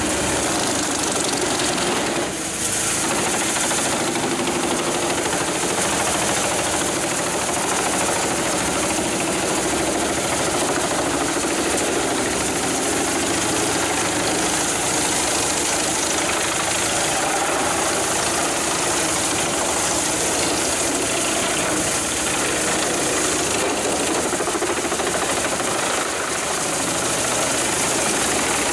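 Heavy machinery's diesel engine running steadily under load, with a dense, unbroken mechanical noise.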